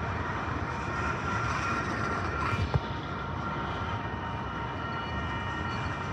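Freight train of autorack cars rolling past, a steady rumble of steel wheels on rail with steady high-pitched tones over it. A single sharp knock comes about two and a half seconds in.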